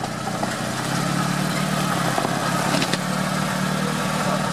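LuAZ off-roader's Daewoo Sens 1.3 engine running steadily at low revs, with a faint click about three seconds in.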